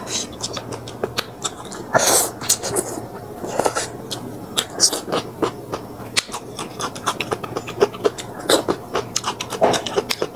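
Close-miked eating sounds: chewing with many irregular wet smacks and clicks of the mouth, and a few louder crunchy bites.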